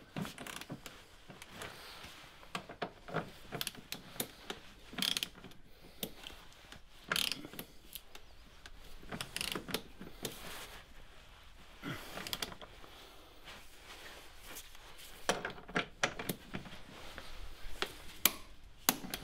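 Ratcheting torque wrench clicking in short, irregular bursts as it tightens the rear suspension strut's upper mounting bolt toward 110 Nm.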